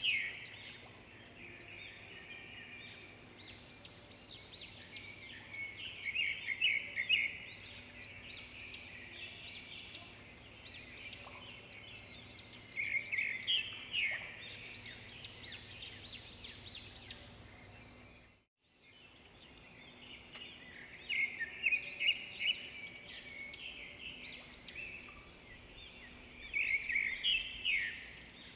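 Songbirds singing, with bursts of quick chirping phrases every few seconds over a faint steady hum. The sound briefly fades out to silence about two-thirds of the way through, then the singing resumes.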